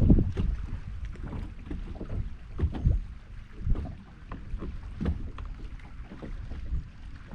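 Wind rumbling on the microphone with irregular light knocks and taps of fishing gear being handled in a small boat.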